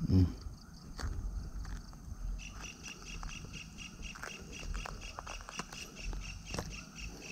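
Clicks and rustling of gloved hands unhooking a snakehead from a soft frog lure in grass, with a thump near the start. From about two seconds in, a high call pulses rapidly and steadily behind it.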